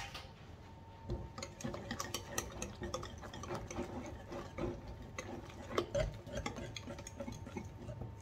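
Wire whisk stirring a thick batter in a glass bowl, its wires clicking and tapping irregularly against the glass several times a second, starting about a second in.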